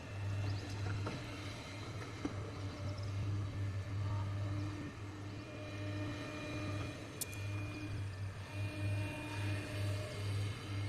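Diesel engine of a working excavator, running steadily with a strong low hum and higher steady tones that come and go. A sharp click about seven seconds in.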